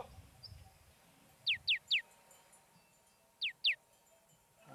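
A bird calling: three quick, high whistled notes, each falling steeply in pitch, then two more such notes about two seconds later.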